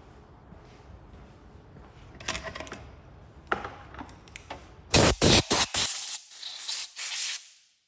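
A few faint scrapes, then from about five seconds in a hand-held sprayer hissing in a run of short bursts onto an aluminium cylinder head being cleaned, the first bursts the loudest.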